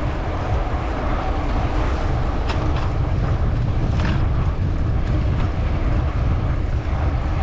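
Steady low rumble of street and riding noise, heard from a bicycle moving along a city street, with a few faint clicks.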